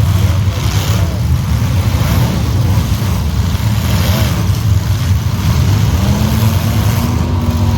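Demolition derby car engines running loud and rough, with one engine revving up and easing off about six seconds in.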